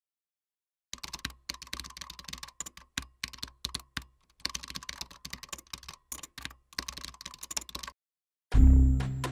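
Packaging being handled and opened: rapid, irregular clicks and crackles starting about a second in and stopping about eight seconds in. Background music comes in near the end.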